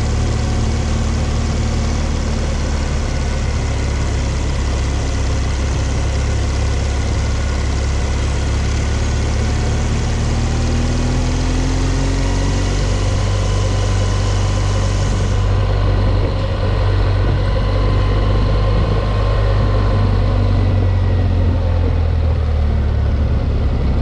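Motorcycle engine running steadily on the move, with wind and road noise. The high hiss drops away about two-thirds of the way through.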